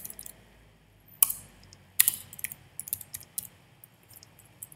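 Typing on a computer keyboard: irregular keystroke clicks, two louder ones about one and two seconds in, then a quicker run of keystrokes.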